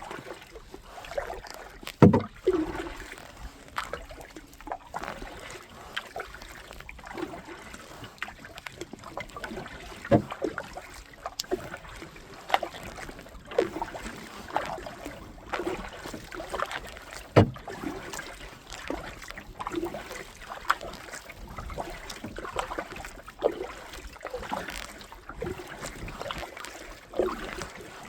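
Kayak paddle strokes in the water, with splashing and dripping about once a second, and a few sharper knocks in between.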